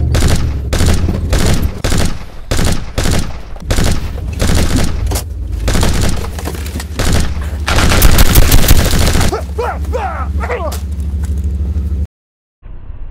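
Gunfire sound effect: a run of single shots, two or three a second, then a dense burst of rapid automatic fire about eight seconds in. A steady low hum follows until the sound cuts out near the end.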